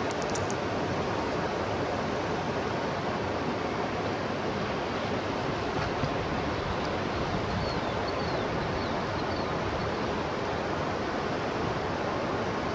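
Steady rushing of flowing river water, an even unbroken hiss. A few faint, short, high chirps come through about two-thirds of the way in.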